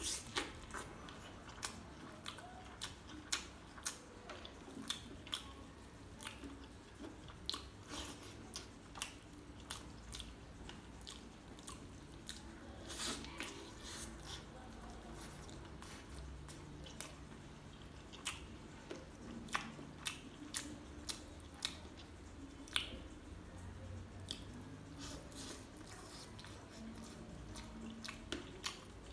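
A person biting and chewing meat off a large chicken leg, with many short sharp mouth clicks and smacks, several a second at times.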